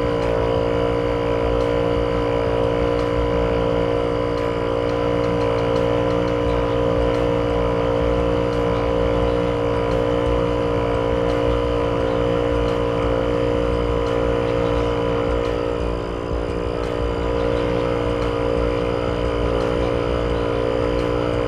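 12V heavy-duty portable air compressor running steadily while inflating a car tyre, with a constant motor hum. It dips briefly in level a little over two-thirds of the way through.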